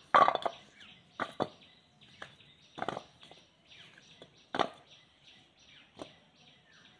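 Thick carrot and potato slices being put by hand into a steel bowl: a handful of irregular knocks and clatters, the loudest at the very start and about four and a half seconds in. Birds chirp faintly in the background.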